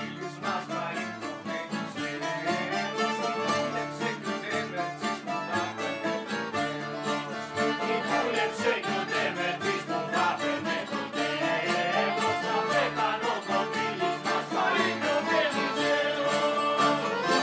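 Rebetiko band playing live: several bouzoukis and a baglama picking the melody over strummed guitars and accordion, with a woman singing.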